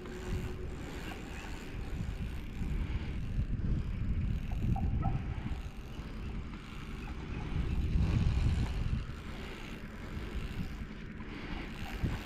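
Wind buffeting the microphone: a gusty low rumble that rises and falls, strongest about eight seconds in.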